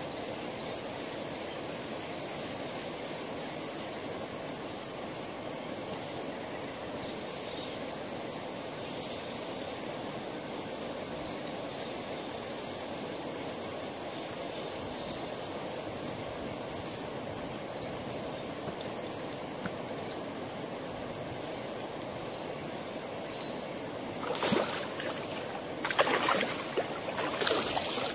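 Steady outdoor river ambience with a constant high drone of insects. From about 24 seconds in, a hooked hampala barb thrashes at the water's surface in several loud splashing bursts.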